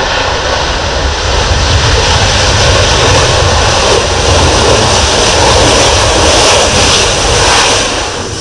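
Panavia Tornado's twin RB199 turbofan jet engines running loud as the jet rolls down the runway. The sound grows as it passes close and eases off near the end.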